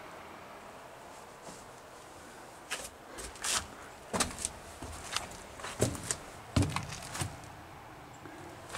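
Footsteps and knocks of someone moving through the rusted metal cab of an abandoned locomotive: about a dozen irregular clunks and taps, starting a few seconds in after a quiet start.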